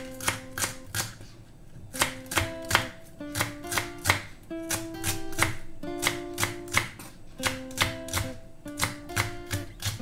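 Kitchen knife chopping spring onion and shallot on a wooden cutting board: quick, regular strikes about three a second, with a short pause a little over a second in. Acoustic guitar music plays underneath.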